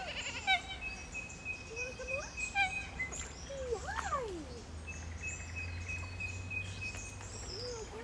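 A goat bleats about four seconds in: one call that rises briefly and then falls. Birds call around it.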